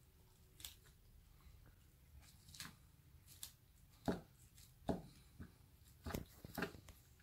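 Kitchen knife cutting and scraping into a whole sole on a wooden cutting board: a series of short, separate strokes, the loudest two about four and five seconds in.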